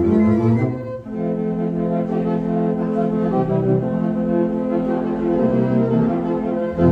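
Hildene's 1908 Aeolian pipe organ playing automatically from its player system: sustained full chords over a moving bass line. The sound dips briefly just before a second in, a new chord sets in, the bass notes change every couple of seconds, and a louder, deeper bass comes in near the end.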